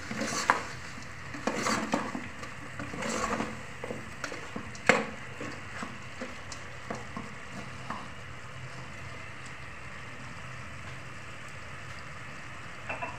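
Metal spoon stirring chicken feet in an aluminium pot, with clinks and scrapes against the pot's side, over a low sizzle of soy-sauce adobo cooking. The stirring stops about halfway through, leaving only the steady sizzle.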